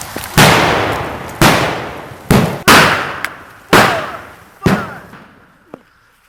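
Gunfire: six loud, sharp shots in about five seconds, irregularly spaced, each ringing out and fading before the next.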